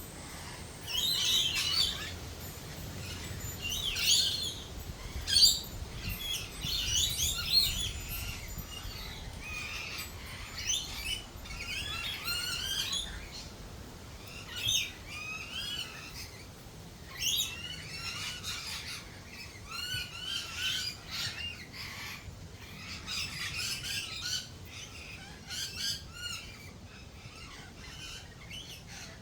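Australian native birds calling, a busy mix of quick, high-pitched chirping phrases that come again every second or two.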